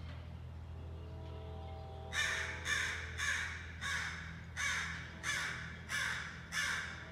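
Crows cawing: a run of eight harsh caws, about two every second.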